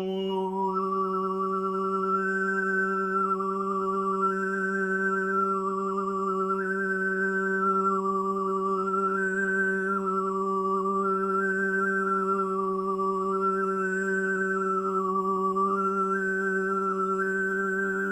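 Tuvan-style overtone throat singing: one held low drone with a high overtone melody stepping up and down above it, stopping abruptly at the end.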